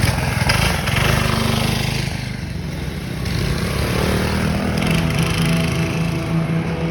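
A small petrol engine running steadily, with a rapid low pulsing from its firing.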